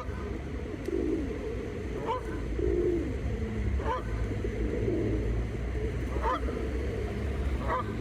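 Canada geese honking: about five short, upward-sliding honks, one every one and a half to two seconds, with softer lower calls between them, over a steady low rumble.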